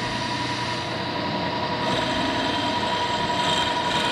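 Vertical milling machine running with an end mill in the spindle: a steady motor hum with a thin steady whine, growing a little louder and brighter about two seconds in.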